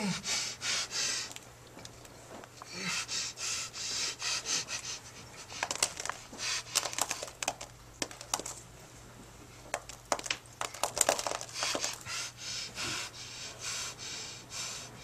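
A man breathing heavily, with loud, hissy breaths in and out every second or two. Clusters of sharp clicks and rustles come in the middle and again a few seconds later, over a steady low hum.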